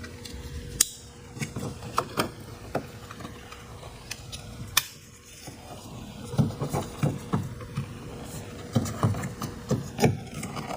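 Irregular plastic clicks and knocks as a car door's power window switch assembly is handled and snapped back together, busiest in two clusters in the second half.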